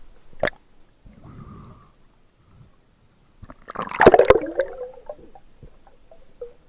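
Underwater gurgling and bubbling: a sharp click about half a second in, then a loud burst of bubbles about four seconds in.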